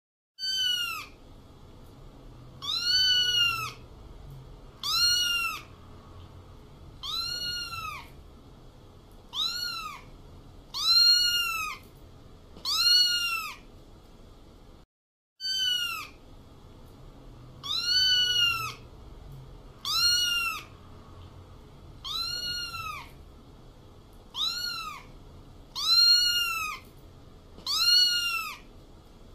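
Cat meows, one at a time about every two seconds: short, high meows that rise and fall in pitch. The run breaks off briefly halfway through and the same series of about seven meows plays again.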